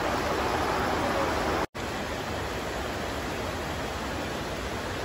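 Steady heavy rain. It cuts out for an instant under two seconds in, then carries on slightly quieter.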